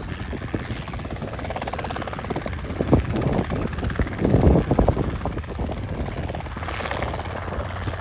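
Helicopter running in flight, its rotor beating in a fast, even chop over a steady engine and rotor noise, with louder low rumbles about three and four and a half seconds in.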